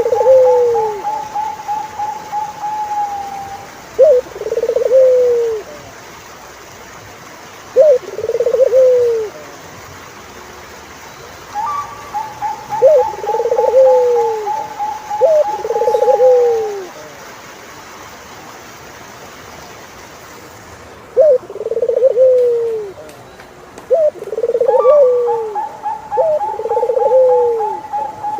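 Turtle doves cooing: repeated short, falling coos, each about a second long, come in several bouts. Overlapping them three times is a longer, rapid trill of higher notes lasting a few seconds.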